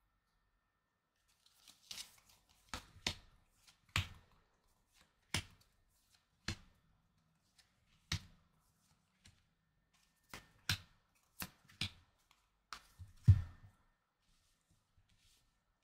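Tarot cards being drawn from the deck and dealt one by one onto a cloth-covered table: a dozen or so short, soft slaps and clicks at uneven intervals, the loudest near the end.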